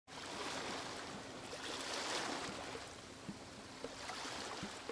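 Water ambience: an even rushing wash that swells and ebbs, with scattered small bubbling blips.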